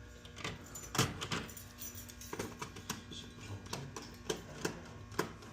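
About nine light, irregular clicks and rattles of hands working cable and wires into a metal fire alarm panel enclosure.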